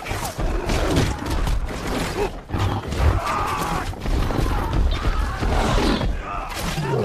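Battle-scene sound mix from a fantasy film: repeated crashes, thuds and clatter over a heavy low rumble of charging war elephants and horses, with cries in the din.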